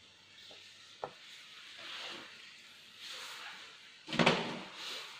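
Crayon scratching across paper in short colouring strokes, with a small tap about a second in. About four seconds in comes a much louder, brief knock and rustle.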